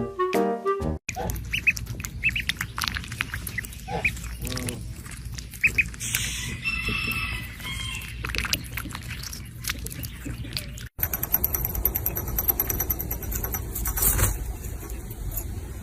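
Young birds, most likely ducklings, giving many short high peeps one after another.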